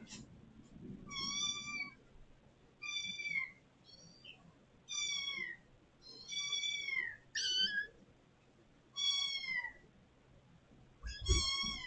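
Kittens meowing loudly and insistently, about seven half-second calls a second or so apart, each high and falling in pitch at the end, calling to be let out. A low thump comes under the last meow.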